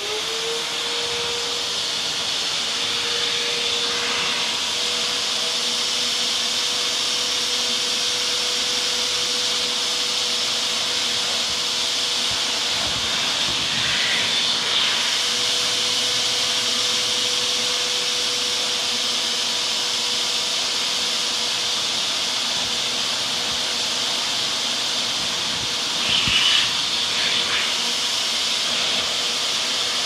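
Wet/dry vacuum cleaner switched on: the motor spins up within the first second to a steady tone over a loud rushing of air. Its nozzle is worked through a wet Komondor's corded coat to suck the water out, and the rush changes briefly a few times, most loudly near the end.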